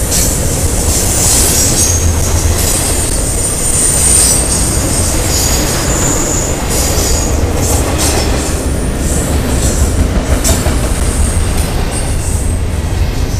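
Double-stack container train of well cars rolling past close by: a steady heavy rumble of steel wheels on rail, with high-pitched wheel squeal coming and going and occasional sharp clanks.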